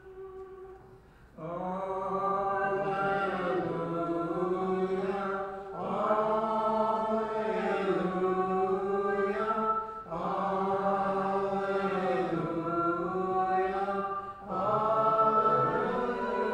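Byzantine-rite liturgical chant. A softly held note gives way, about a second and a half in, to louder sung phrases of about four seconds each, with short breaks between them.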